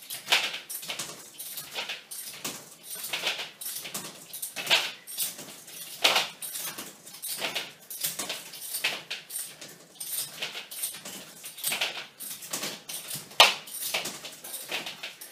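Quick, forceful breaths and the swish of an elastic resistance band, repeating in a steady rhythm a little more than once a second as a man twists side to side in fast band rotations. There is a sharper one near the end.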